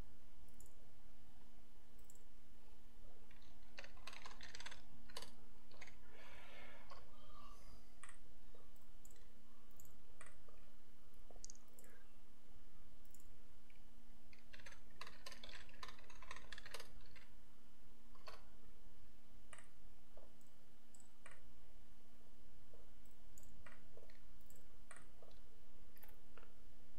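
Computer mouse clicks and keyboard keystrokes at a desk: scattered single clicks, with two quick runs of keystrokes about four seconds in and again around fifteen seconds. A steady low electrical hum sits underneath.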